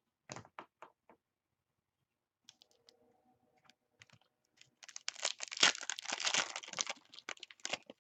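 A few sharp taps of trading cards being handled, then from about five seconds in a dense, loud crackling as a foil trading-card pack wrapper is torn open and crinkled.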